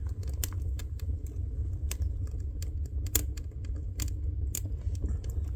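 Freshly lit kindling fire in a cabin wood stove crackling, with sharp pops scattered over a steady low rumble; the fire is catching well.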